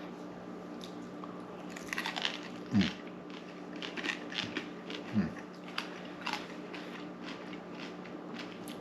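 Close-up eating sounds: a person biting into and chewing a crispy pan-fried dumpling, with a run of short crunches and wet mouth clicks. Two brief low sounds fall in pitch, about three seconds in and again about five seconds in, over a faint steady hum.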